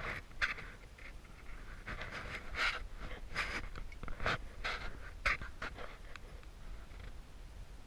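Heavy panting: a quick, uneven run of breaths, fading in the last couple of seconds.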